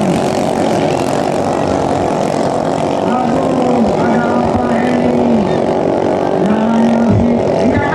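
500 cc racing ketinting longtail boat engine running at high revs, its pitch dipping briefly a few times and climbing back.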